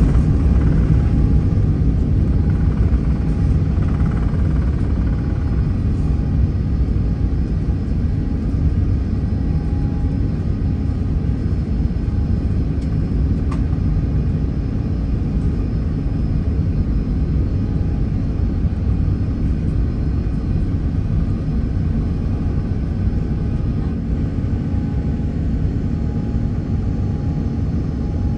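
Airbus A380 cabin noise through takeoff and initial climb: a steady low rumble of the engines at reduced takeoff thrust and the rushing air, with a faint steady tone above it, easing slightly in level as the climb goes on.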